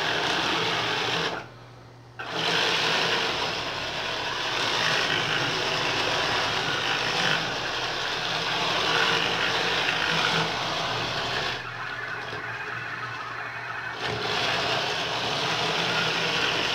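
Roomba robot vacuum's motors whirring steadily as it drives and spins in place at various speeds. The whirr cuts out for about a second near the start, then runs lower for a couple of seconds later on.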